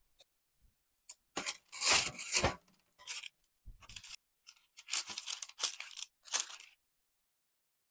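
Parchment paper rustling and crinkling as it is handled, in several short bursts, the loudest about two seconds in.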